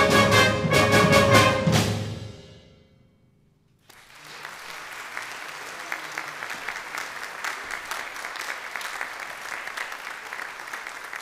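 Youth concert band playing loud final chords with brass and repeated drum strikes, cutting off about two seconds in and ringing away in the hall. After a moment of silence, the audience breaks into steady applause.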